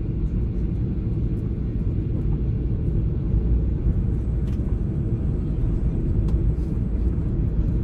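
Steady low rumble of engine and airflow heard inside the cabin of a Boeing 737-800 on landing, with a faint hiss above it.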